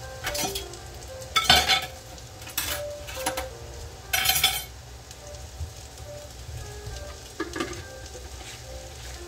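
Cauliflower and vegetables sizzling in a covered frying pan, with several sudden louder bursts of sizzling over a steady low hiss.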